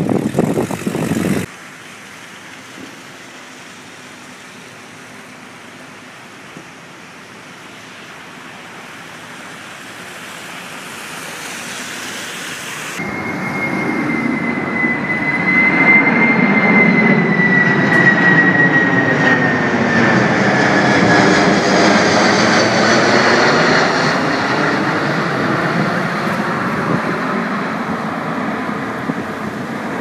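A jet aircraft passing overhead: its engine noise swells over several seconds to a peak past the middle and then slowly eases off, with a high whine that appears partway through and drifts steadily down in pitch as it goes by. A brief loud gust of wind on the microphone at the very start.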